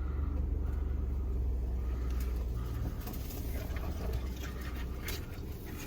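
Vehicle engine droning low and steady, heard from inside the cab while it crawls over rough ground. A couple of light knocks come near the end.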